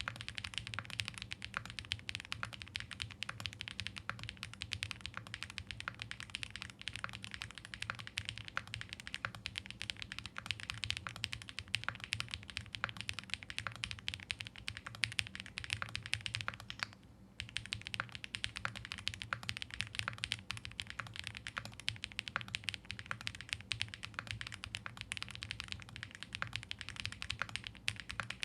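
Fast continuous typing on a CYBERBOARD R2/R3 mechanical keyboard with its gasket-mount flex kit fitted: a dense run of key clicks, breaking off briefly about two-thirds of the way through.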